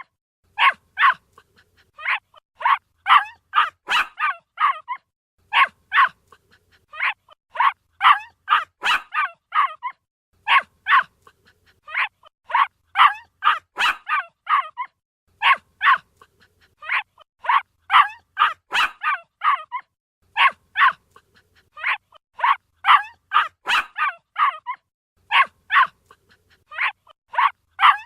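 A puppy barking in quick runs of several short, high barks, with brief pauses between the runs, over and over.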